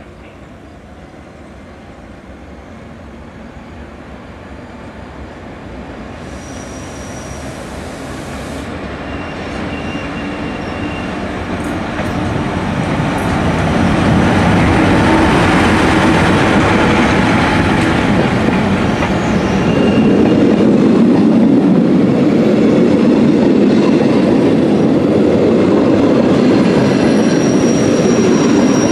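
Rhaetian Railway Glacier Express train pulling out behind a Ge 4/4 I electric locomotive: the rumble of the locomotive and wheels on the rails grows steadily louder over the first half as it comes close and passes, then stays loud as the coaches roll by. Brief high squeals from the wheels come and go.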